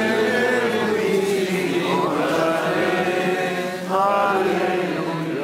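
A crowd singing a slow chant-like hymn together, on long held notes; a new, louder phrase begins about four seconds in.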